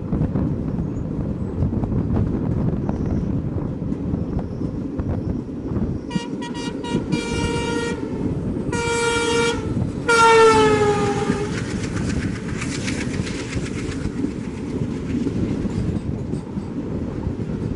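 Horn of an oncoming ALCO diesel locomotive: a quick string of short toots running into a longer blast, then two more blasts, the last dropping in pitch as it passes close by. The passenger coaches then rush past over the steady rumble and clatter of the train being ridden, with wind on the microphone.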